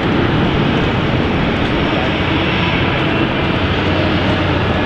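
Jet airliner engines running, a steady loud rush of noise with a low hum under it and a faint high whine in the middle.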